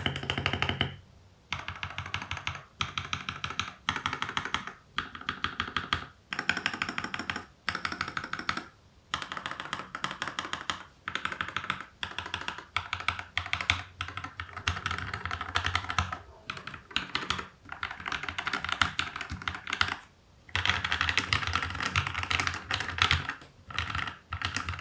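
Typing on a mechanical keyboard with burned-in, lubed KTT Mint switches and FSA-profile keycaps: fast runs of keystrokes in bursts, with short pauses between them. The typing has a deep, thocky sound.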